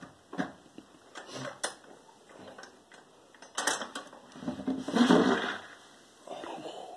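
Hand-operated steel paper log press being worked on wet paper: light metallic clanks and rattles from the perforated lid and lever handles, then a longer, louder crushing sound about five seconds in as the levers are forced down, squeezing water from the soaked paper.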